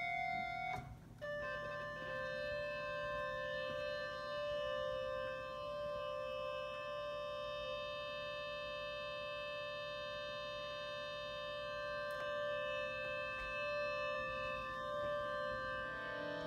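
Electric organ sounding a long held note as a cat stands with her paws on the keys. The tone cuts off briefly about a second in, a new note then holds steady for about fifteen seconds, and it changes to other notes near the end.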